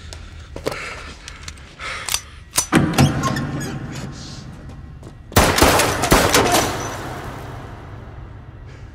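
Action-film fight sound effects: a series of sharp hits and crashes, with a loud group about three seconds in and the loudest, densest cluster about five and a half seconds in, which then dies away.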